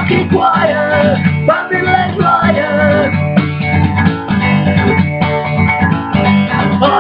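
Acoustic punk song: a steadily strummed acoustic guitar, with a wavering melody line over it.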